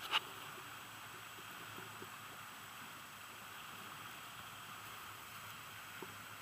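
Steady rush of river water flowing over a shallow riffle, with small whitewater breaking around the kayaks.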